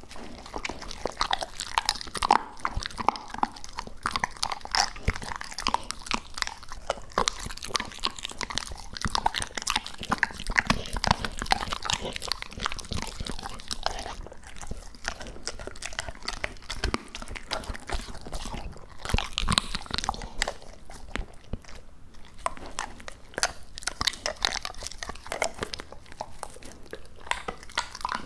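Labrador retriever chewing and crunching raw duck close to the microphone: a steady run of wet bites and crunches with brief pauses.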